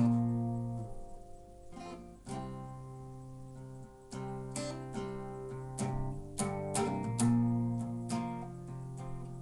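Acoustic guitar strummed in chords, each struck chord ringing on before the next, every second or so.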